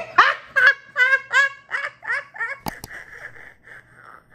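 A woman laughing hard: a quick run of high-pitched 'ha' bursts that softens into breathy giggles. Two sharp clicks sound about two-thirds of the way through.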